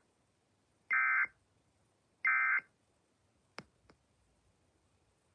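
EAS end-of-message (EOM) SAME data bursts: the last two of three short bursts of buzzing digital tones, about a second apart, closing the warning. Two short clicks follow.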